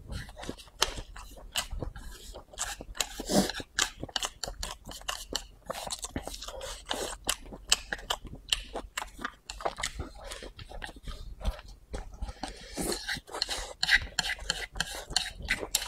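A person chewing a mouthful of stir-fried rice noodles and rice, with many short wet smacks and clicks of the mouth and an occasional crunch.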